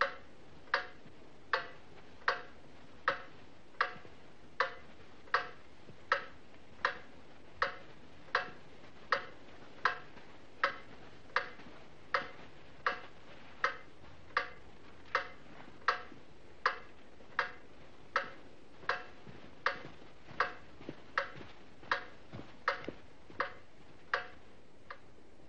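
A clock ticking steadily, about four even ticks every three seconds, each a sharp click with a slight ring.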